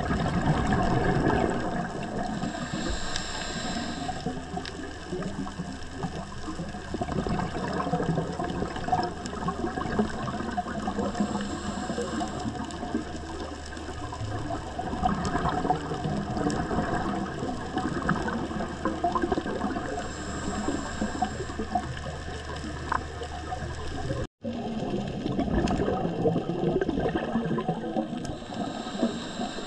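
Underwater scuba ambience: a diver's regulator hissing on each breath about every eight or nine seconds, with bubbling water in between. The sound cuts out for a moment about four-fifths of the way through.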